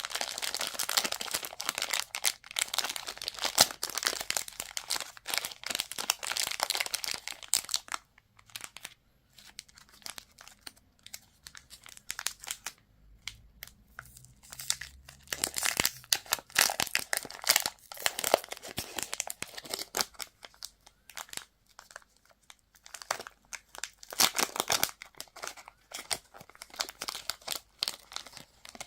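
Plastic candy wrappers crinkling and tearing as they are unwrapped by hand, in close-up. Dense crinkling for the first several seconds, a quieter lull of a few seconds with only scattered small crackles, then bursts of crinkling and tearing again.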